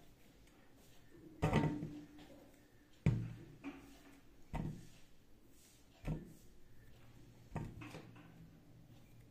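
Wheat-flour dough being pressed and worked by hand in a stainless steel bowl: a dull thump about every second and a half, five in all, the first two loudest.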